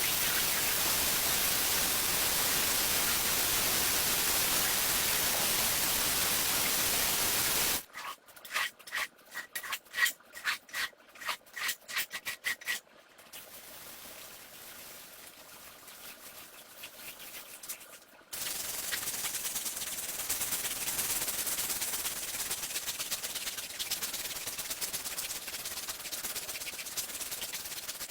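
Rug being scrubbed: a steady hiss for the first several seconds, then a run of quick brush strokes about three a second, a brief quieter hiss, and from about two-thirds of the way in a continuous scrubbing and rubbing on the shag pile.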